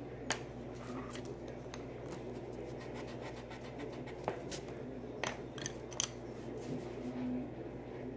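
Colored pencils clicking as they are picked up and set down, with light scratching of pencil on paper. A few sharp clicks stand out, one just after the start and several between about four and six seconds in.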